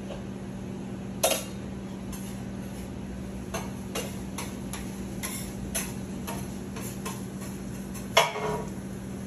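Irregular clicks and knocks of a metal utensil on a flat-top griddle as food is worked on it, the loudest about eight seconds in, over a steady low hum.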